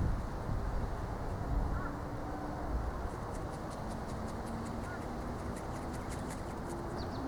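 Wind noise on the microphone in a strong wind: a steady rushing haze, with faint short chirps and ticks above it.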